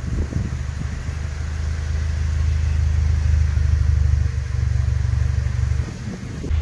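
Toyota Corolla hatchback's 2.0-litre four-cylinder engine idling with a steady low hum.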